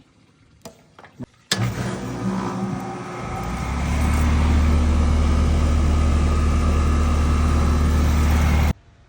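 Air-conditioner condensing unit starting up. A sharp contactor click is followed by the compressor and condenser fan motor spinning up over a couple of seconds into a steady, loud electrical hum, which cuts off suddenly near the end.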